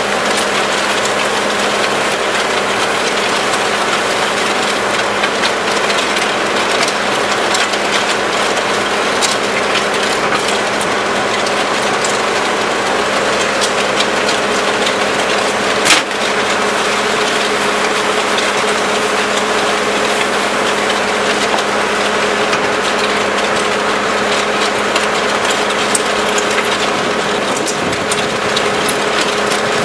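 Skid steer engine running steadily while the hydraulically driven Danuser MegaMixer steel auger churns concrete mix in the bucket. A single sharp knock sounds about 16 seconds in.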